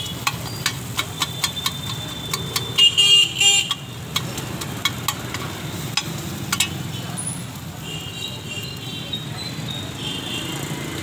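Metal spatula chopping and tapping on a flat iron griddle (tawa), mashing samosas: a quick run of sharp metallic clicks that stops after about six seconds. Street traffic hums underneath, with a vehicle horn tooting about three seconds in.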